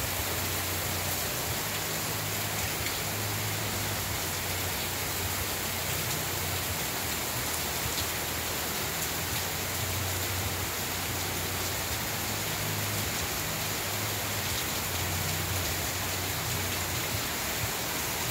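Steady heavy rain pouring onto pavement, lawns and parked cars: a dense, even hiss with no letup.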